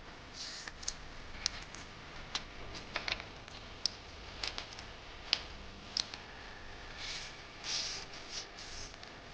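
A sheet of A4 paper being handled and folded by hand: scattered crisp clicks and short rustling swishes as it is creased.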